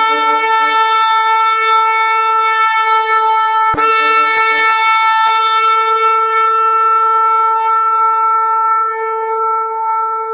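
Shofar blown in one long held blast at a steady pitch, with a few faint clicks about four to five seconds in.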